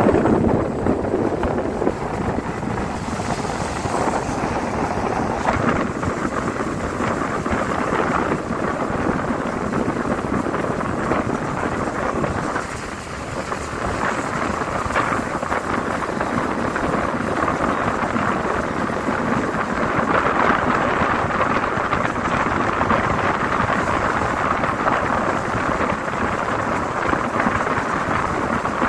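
Steady rushing noise of a moving vehicle heard at an open window, with wind buffeting the microphone; it dips briefly about halfway through.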